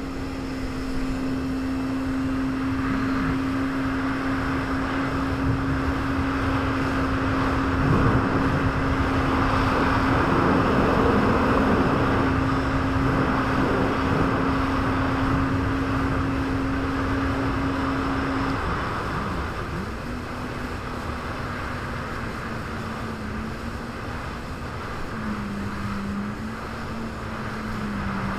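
Jet ski engine running at a steady high pitch, with a rush of water and wind loudest in the middle. About nineteen seconds in the engine drops off briefly, then runs on at a slightly lower, wavering pitch.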